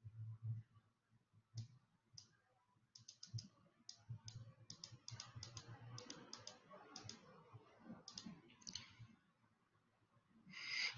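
Faint, irregular clicking at a computer, several clicks a second at its densest, over near-silent room tone.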